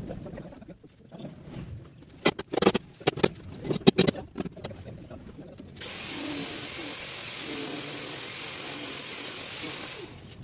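A run of sharp knocks and clicks, then a steady hiss of rushing air lasting about four seconds that stops abruptly.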